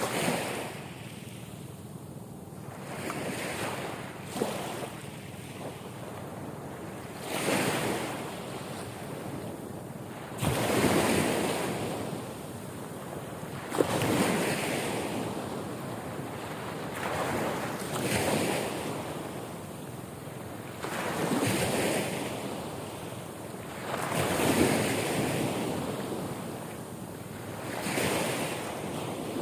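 Sea waves breaking and washing in, each surge swelling and fading about every three to four seconds.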